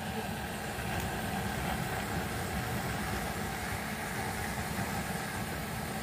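Butane gas torch on a canister firing a steady jet flame into firewood to light a fire: a continuous rushing noise with a fluttering low rumble.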